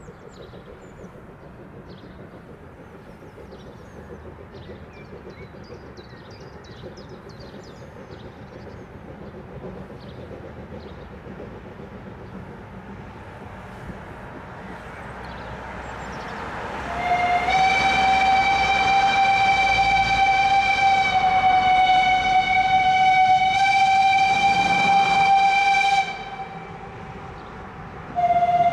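Narrow-gauge steam locomotive's whistle blowing one long blast of about nine seconds. The blast starts with a slight upward slide in pitch, and a second blast begins near the end. Before it, road noise from passing cars and faint birdsong rise as the train approaches the level crossing.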